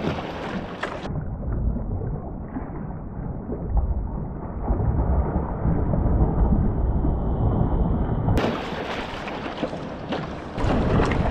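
An outrigger canoe being capsized at sea, with water splashing and churning around the hull and paddler as it rolls over, and wind on the microphone. The sound turns muffled about a second in and clears again near the end.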